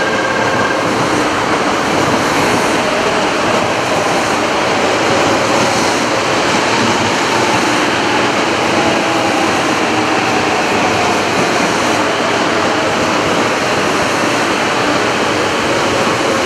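300 series Shinkansen train running past close by: a loud, steady rush of wheels on rails and air, with a faint whine gliding in pitch through it.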